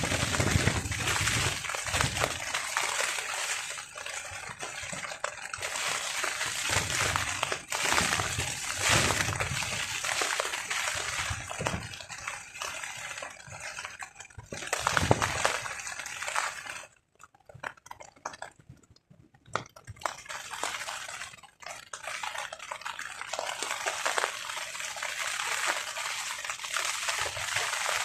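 Rain falling on a tarp in strong wind, swelling and easing in gusts with low buffeting surges, and briefly dropping away to almost nothing about two-thirds of the way through.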